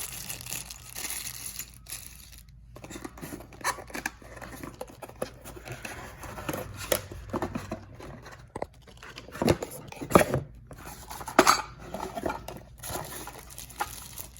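Plastic packaging being torn and crumpled while a keypad deadbolt is unboxed, with clinks and knocks of its metal parts. A few sharper knocks come from about two-thirds of the way through.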